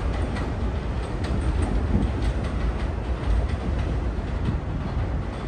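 New York City subway train running along an elevated line and pulling away. It makes a steady low rumble with scattered wheel clicks over the rail joints, growing slightly fainter near the end.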